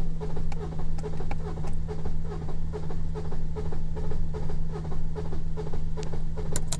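BMW M57 straight-six diesel in a 2007 330xd cranking on its starter without firing: a steady starter hum under an even rhythmic pulsing, about three beats a second. The engine will not start because cylinders 5 and 6 have no compression, which the owner takes for a broken engine.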